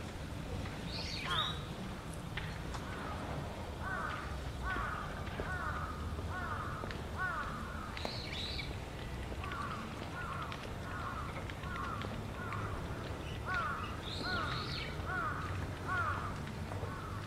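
A crow cawing in long runs of short calls, about one and a half a second, with a higher-pitched bird call breaking in three times.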